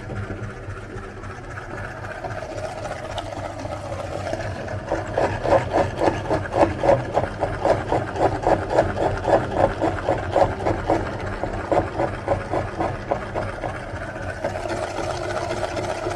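Electric meat grinder running, its motor humming steadily; from about five seconds in to about eleven the sound pulses at about three beats a second as the auger works the load through.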